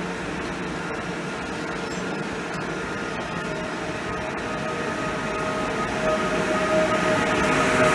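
PESA Elf electric multiple unit EN76-006 pulling away from a standstill. About three and a half seconds in, a steady electric drive whine sets in and grows louder as the train gathers speed.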